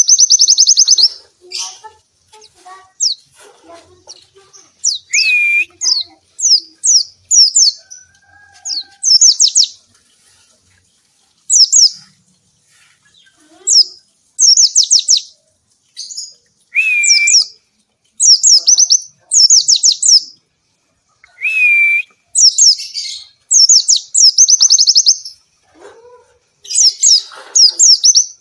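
White-eye (pleci) singing in bursts of fast, high, sweeping twittering notes, each burst about half a second to a second and a half long, with short pauses between. A lower slurred whistle comes three times, near 5, 17 and 22 seconds in.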